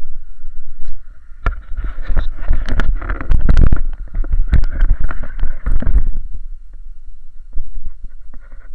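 Handling noise from a pole-held action camera being jostled by a rollerblader on asphalt: a dense run of knocks, scrapes and low rumble from about one and a half to six seconds in, then quieter scattered knocks over a faint steady hum.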